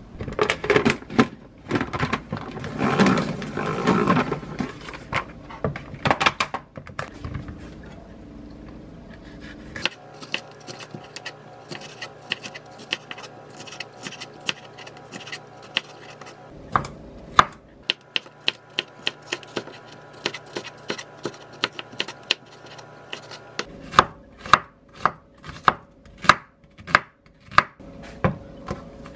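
Chef's knife slicing bell peppers on a wooden cutting board: a long run of quick, sharp cuts, each stroke tapping the board, loudest near the end. In the first few seconds there is a rustling of handled food.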